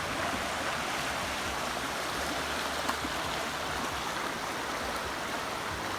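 Water rushing steadily over a small, shallow river rapid.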